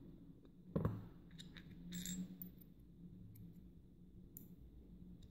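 Faint small metallic clicks and taps as the plug of a gutted UAP 6-pin euro cylinder lock is handled between the fingers, with one louder click about a second in.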